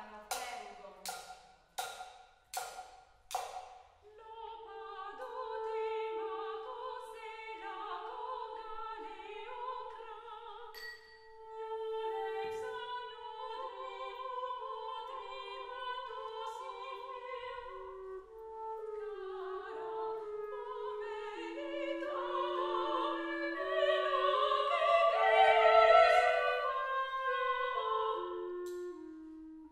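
Two sopranos singing in a contemporary chamber piece with clarinet, after an opening run of sharp, ringing strikes on a kitchen pot with spoons, about two a second for the first four seconds. The voices move between long held notes and quick syllables, grow loudest about three-quarters of the way through, and step down in pitch near the end.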